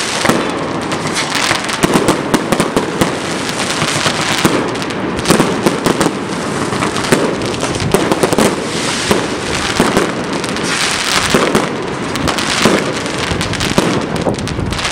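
Aerial fireworks fired in rapid succession: a continuous barrage of launches and bursting shells with crackling, many bangs a second without a pause.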